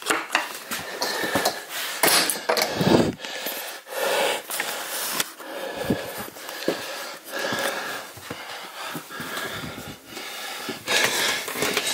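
A person breathing heavily and unevenly close to the microphone, broken up by short clicks and knocks.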